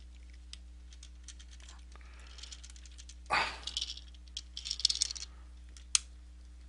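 Plastic parts of a Transformers Earthrise Doubledealer figure clicking and rattling in the hands as its legs are forced toward their peg slots, with louder scuffs about halfway through and a single sharp click near the end.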